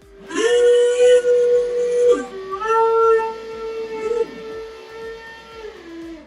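Background music: a melody of long held notes that slide down at their ends.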